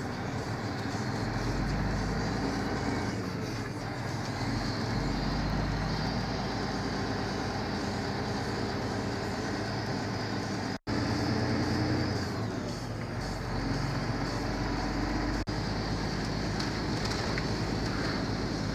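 Freightliner truck's diesel engine running as the truck drives along, heard inside the cab with tyre and road noise from the wet road. The sound drops out for an instant about eleven seconds in.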